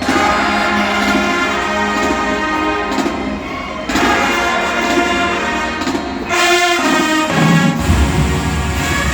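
HBCU marching band playing a field-show selection, brass sections holding loud sustained chords over percussion, with the deep low brass coming in strongly near the end.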